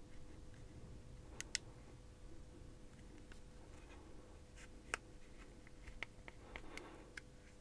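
Plastic pry picks levering at the seam of an iPod Touch 5th generation's screen and housing, with faint clicks and small cracks of plastic as its tight plastic clips are worked loose. A pair of sharp clicks comes about a second and a half in, another near five seconds, and a run of smaller ticks near the end.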